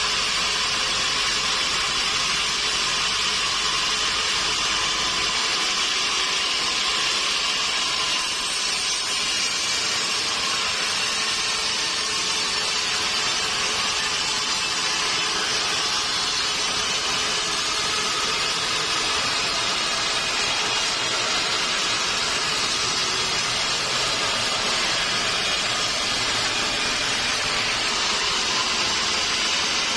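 Sawmill saw running steadily through a mahogany log, a continuous high-pitched cutting noise with no breaks.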